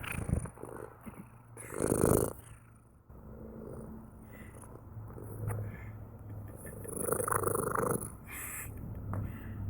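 Domestic cat purring: a continuous low rumble that swells louder about two seconds in and again between seven and eight seconds.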